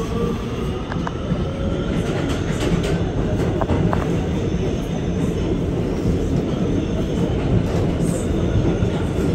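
Kawasaki R211T subway train running, heard from inside the car: a steady, dense rumble of wheels on rail with a few scattered clicks. A faint rising whine fades out in the first second or so.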